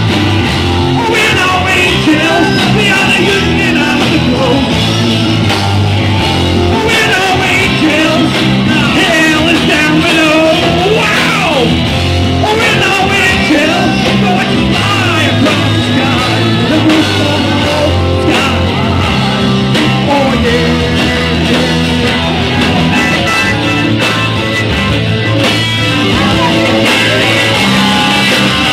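Live rock band playing loud: drums, electric and acoustic guitars, bass and keyboard, with a lead singer's vocals over the top.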